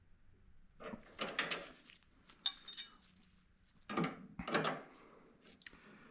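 Metal objects handled and set down, clattering and clinking in three short bursts, with a brief ringing clink about two and a half seconds in.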